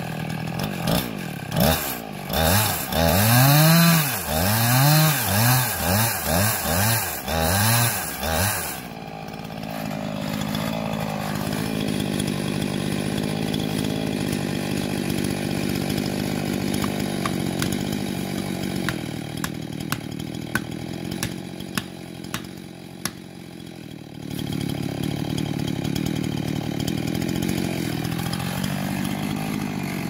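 Gasoline chainsaw cutting into a pine trunk, its engine revving up and down over and over for about the first nine seconds, then settling to a steady idle. While it idles, a string of sharp knocks comes from a felling wedge being driven into the cut.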